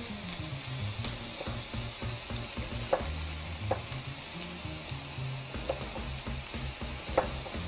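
Diced red pepper and spring onion sizzling in oil in a frying pan, a steady hiss, with a few sharp knife strokes on a wooden chopping board, the loudest about three seconds in and near the end.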